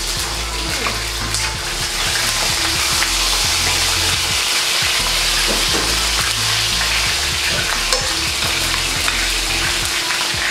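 Tuna fillets sizzling steadily as they sear in hot oil in a frying pan.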